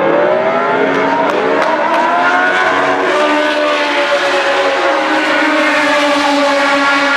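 Several 1977–83 Formula 1 cars, Cosworth DFV V8s among them, accelerating hard past one after another. Their engine notes climb in pitch over the first couple of seconds, then hold high and steady.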